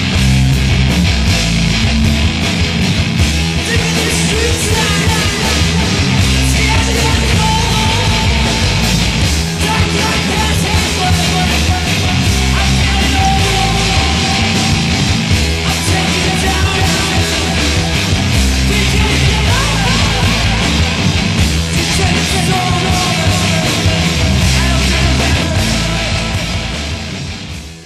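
Loud rock music with vocals, fading out near the end.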